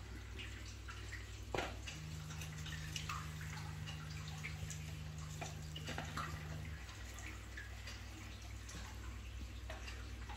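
Reef aquarium's water system running: water dripping and trickling over a steady low hum. A second steady low hum comes in about two seconds in and stops about seven seconds in, and there is one sharp click about one and a half seconds in.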